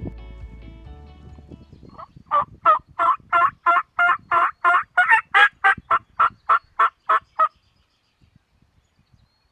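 A run of about sixteen turkey yelps, evenly spaced at about three a second, louder and a little higher in the middle of the run, then stopping. Background music fades out before the yelps begin.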